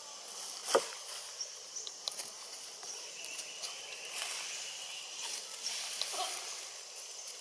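Outdoor ambience: a faint, steady high-pitched insect drone with scattered small clicks and rustles, and one sharp snap a little under a second in, the loudest sound.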